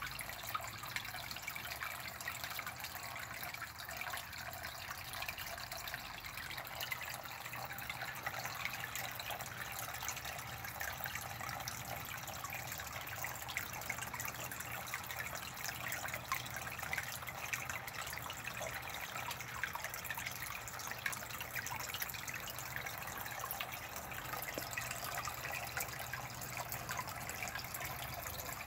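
Water trickling and splashing steadily into a fish pond, a continuous fine patter with a faint low hum underneath.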